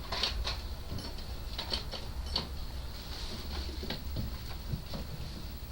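Irregular small metallic clicks and rattles of door-lock hardware being handled and fitted.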